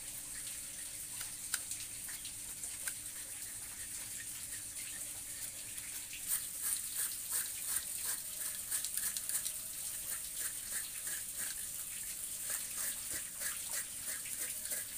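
Small knife scraping hair and skin off a pig's head in short rasping strokes, a few strokes a second, starting about six seconds in, over a steady high hiss.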